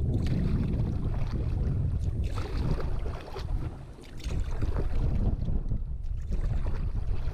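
Gusty wind buffeting the microphone, a dense low rumble with hiss above it, easing briefly about halfway through.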